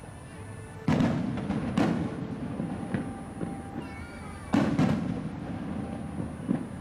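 Aerial fireworks shells bursting: two loud booms about a second apart, then two more in quick succession a little after the midpoint, each trailing off in an echo.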